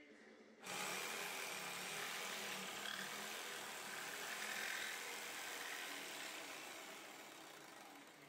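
Old electric jigsaw, fitted with a narrow fine-toothed Makita blade, cutting through a pine board with a steady sawing buzz. The buzz starts abruptly just under a second in and tapers off near the end.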